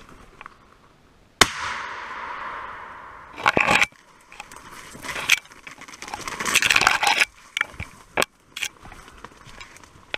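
A single very loud sharp bang about a second and a half in, fading away over about two seconds: a rifle shot. It is followed by crackling and snapping of dry grass and twigs as someone pushes quickly through the undergrowth.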